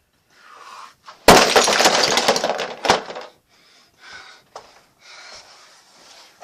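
A Lego brick house thrown down and smashing apart: a sharp loud crash about a second in, then a dense clatter of plastic bricks scattering, a second knock near three seconds, and a few smaller clatters after.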